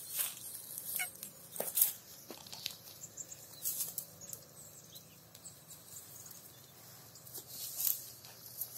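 Cow grazing: irregular crisp rips and crunches of grass being torn off and chewed, louder around two seconds in and again near the end, with a quieter stretch in between.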